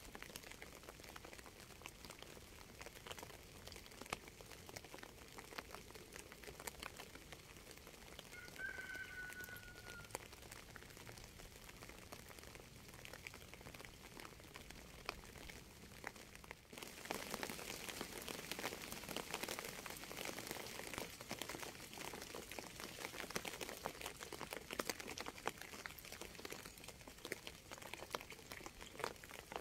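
Rain falling, a steady patter of many separate drops. A bird chirps once briefly about nine seconds in. At around seventeen seconds the rain abruptly turns heavier and louder.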